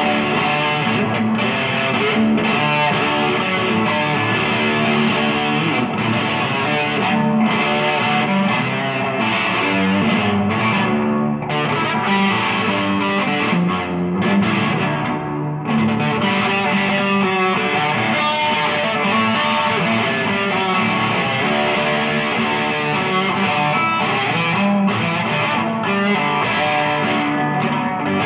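Electric guitar played through an amplifier, a continuous run of picked notes and strummed chords. The playing briefly turns softer and duller twice in the middle.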